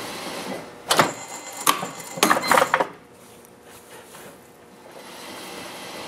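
Cotton fabric rustling and crinkling as it is pulled out from under an industrial sewing machine's presser foot and handled. There are a few quick, sharp rustles from about one to three seconds in, over a steady low hum that fades after them.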